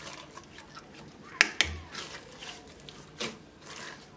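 Pink slime being squeezed, pulled and stretched by hand: a run of sticky squelches and short sharp pops, the loudest two close together about a second and a half in.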